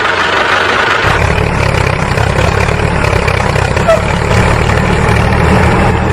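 An engine running at a steady idle, with a low rumble that sets in about a second in and holds.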